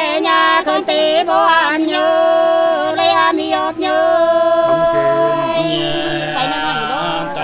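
Two Nùng women singing hát sli unaccompanied, in long held notes that waver and slide at their ends. A lower voice comes in near the end.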